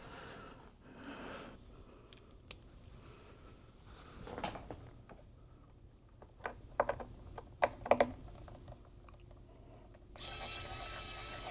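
Scattered small clicks and taps of hands and tools handling parts inside an opened iMac, with a quick cluster of sharp clicks a little past the middle. Near the end, a loud, even noise lasts just over a second.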